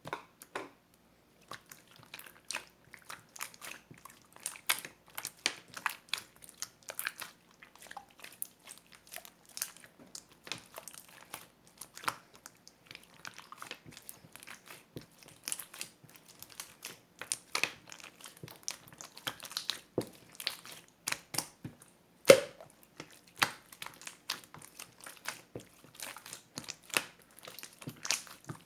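Close, irregular crackling and clicking, like something being crinkled or crunched, with one sharper snap about three-quarters of the way through.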